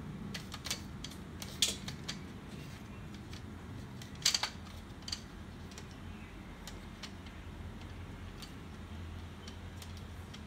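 Sharp clicks and knocks of a laser printer's fuser assembly being handled and seated in its bay, loudest about a second and a half in and in a quick cluster around four seconds in, followed by lighter scattered ticks.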